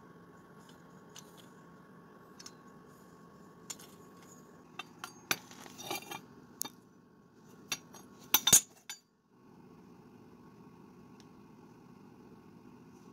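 Sharp metallic clinks and knocks as a homemade steel exhaust header and its flange are handled and set down on a concrete floor, over a steady low hum. The clinks come in a scattered run through the middle, loudest in a quick cluster near the end of it.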